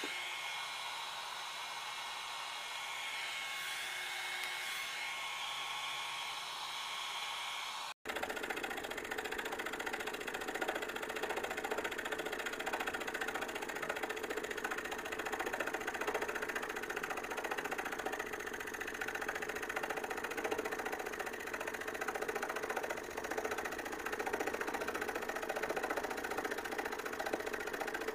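A small motor whirring steadily with a thin high whine, cut off abruptly about eight seconds in; then a scroll saw running, its reciprocating blade cutting steadily through a thin wooden board.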